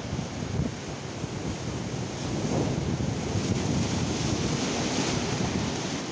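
Sea surf breaking and washing against a rocky shore, with wind buffeting the microphone. The surf grows louder about halfway through.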